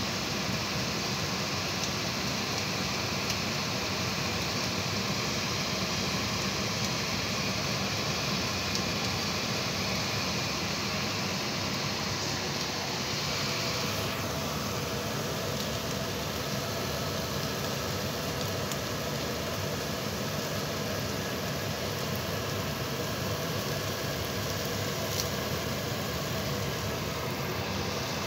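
Chicken skewers sizzling on an electric grill plate: a steady hiss over a constant motor-like hum. The hiss lessens about halfway through.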